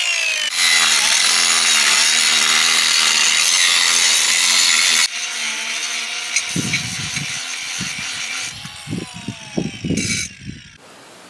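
Angle grinder, fitted with an aluminum grinding disc instead of one meant for steel, grinding off welded steel bolt heads on a snow groomer's track cleat. It is loud for about five seconds, then suddenly quieter, with low thuds and a falling whine before it stops near the end.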